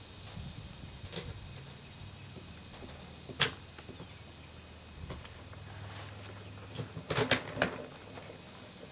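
A sharp click about three seconds in and a quick run of clicks near the end, over a steady low hum with a high whine that cuts off suddenly just before the end.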